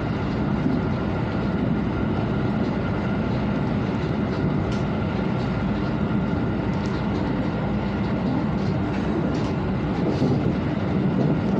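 Tokaido Shinkansen train running, a steady rumble of motion heard from inside a passenger car.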